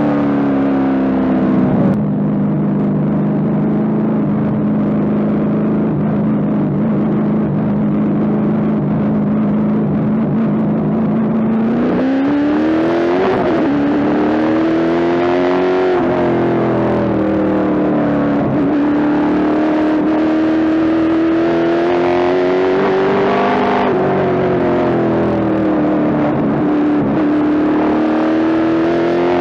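Pro Stock late-model race car's V8 engine heard from inside the cockpit, droning at a steady low pitch under caution. About twelve seconds in it revs up as the race goes green. After that its pitch rises and falls in long swells, accelerating down the straights and easing off into the turns.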